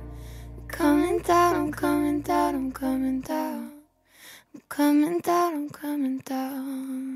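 A woman singing a slow, soft pop melody over a low sustained backing. The backing stops about three seconds in, and after a brief pause the voice carries on alone before the song cuts off abruptly at the end.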